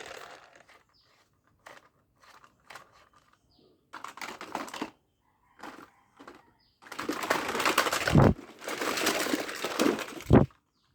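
Plastic toy vehicles being handled and moved by hand: scattered light clicks and rattles, then a longer rough scraping and rattling stretch in the second half, with two sharp knocks.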